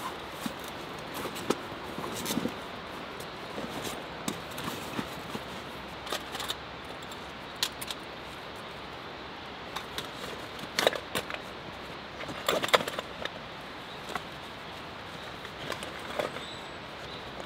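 Camping gear being packed into a backpack by hand: irregular clicks and clinks of metal items such as a metal cup, with rustling of fabric and straps. The loudest clusters of clinks come about eleven and thirteen seconds in.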